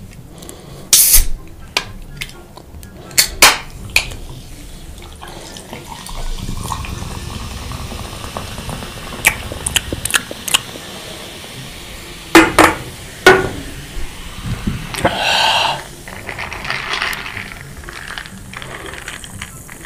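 Close-miked eating sounds of chicken and pasta: a string of sharp clicks and smacks, some in quick pairs, with a louder noisy stretch about fifteen seconds in.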